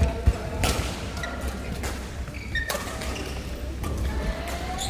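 A doubles rally: four sharp racket hits spaced about a second apart, with high squeaks between them.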